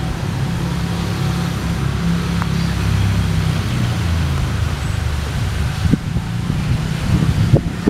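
Motor vehicle engine running with a low, steady hum whose pitch drops about three seconds in, with a few short knocks near the end.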